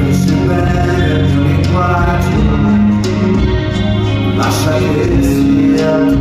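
Live amplified music led by a solo electric guitar, with held notes over a steady low bass line.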